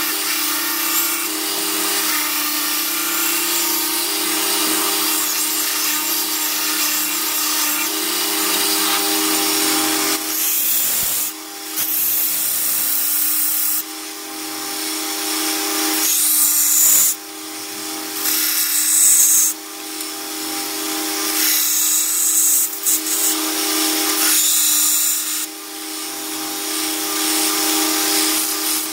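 A 2x72 belt grinder running steadily, grinding a forged steel knife blade. The blade is pressed to the belt in repeated passes of a few seconds each, and the grinding hiss swells with each pass from about a third of the way in.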